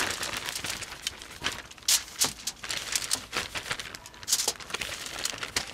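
Plastic zip-top bag crinkling and rustling as chicken drumsticks are tossed inside it to coat them in cornstarch. It is an irregular run of crackles, with a few sharper ones about two seconds in and again near four and a half seconds.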